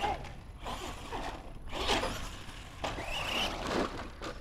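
Radio-controlled monster truck driving in short bursts of throttle across asphalt: motor whine and tyre noise coming and going several times, with a rising whine about three seconds in.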